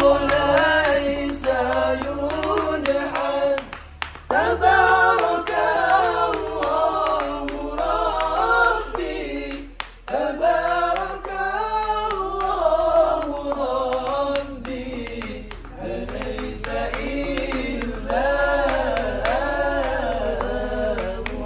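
A small group of male voices singing an Arabic sholawat devotional song together. It goes in long winding phrases, with short breaks about four and ten seconds in.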